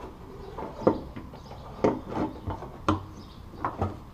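Light metallic clunks and rattles, about half a dozen irregular knocks, as a fuel level sending unit is lowered into the opening of a new metal fuel tank and seated on its flange.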